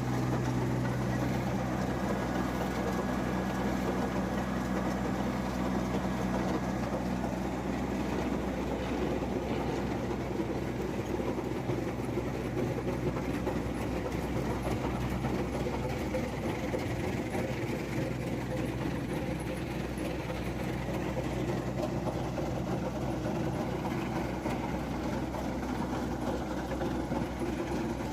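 Heavy diesel engine of a large Wirtgen cold milling machine running steadily. A clear engine hum gives way about eight seconds in to a rougher, noisier rumble.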